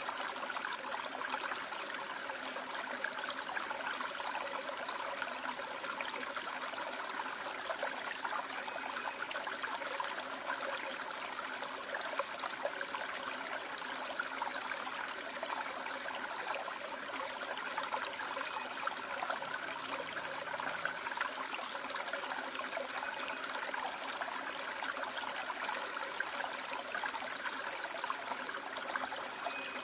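Valley stream water running steadily over rocks, an even rushing with no breaks.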